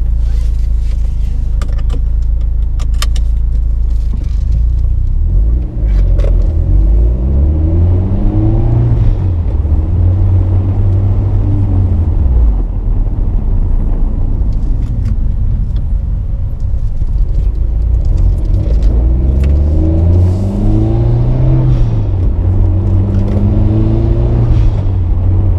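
Mitsubishi Lancer Evolution X's turbocharged 2.0-litre four-cylinder engine running steadily at first, then accelerating about five seconds in, its pitch climbing and falling back as the car is shifted through the gears, with a second pull climbing again later on.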